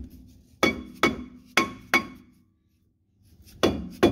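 Hammer blows on a 2004 Jeep Grand Cherokee's front brake disc to break it free of the hub, where a rust bond holds it tight. Each strike makes the disc ring. There are four blows about half a second apart, a pause, then two more near the end.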